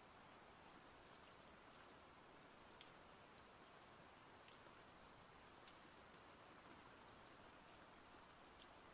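Faint, steady rain hiss with scattered single drops ticking.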